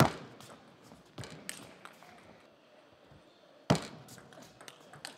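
Table tennis play: light clicks of the celluloid ball off the bats and the table, and two loud knocks, one at the very start and one about three and a half seconds in.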